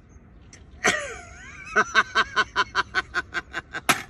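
A man laughing in a quick run of short ha-ha pulses, about five a second, after a brief cry about a second in. Near the end, a sharp knock as the glass pickle jar is set down on the metal table.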